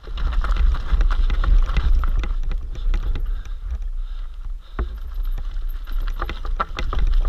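Mountain bike riding fast down rocky, loose-gravel singletrack: a continuous low rumble of tyres over stones and wind on the microphone, with many sharp clicks and knocks as the bike rattles over rocks.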